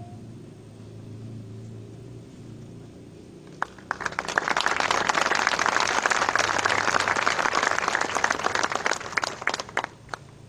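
Audience clapping. The applause starts with a few claps about three and a half seconds in, quickly becomes dense, and dies away in scattered claps near the end.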